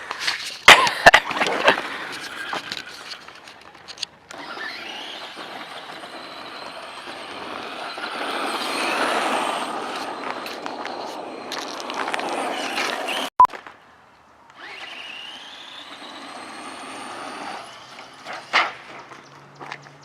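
Electric RC truck driving on pavement: its motor whine rises as it speeds up, over the hiss of its tyres, swelling and fading as it passes, twice, with an abrupt cut between. A few sharp clacks come at the start and one near the end.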